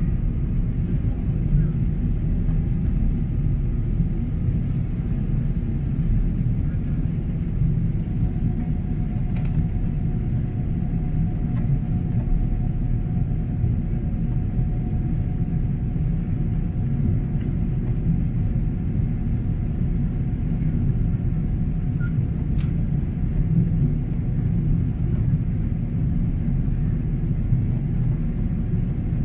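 Steady low rumble of a Boeing 777-300's jet engines running at high power, with a faint steady whine above it.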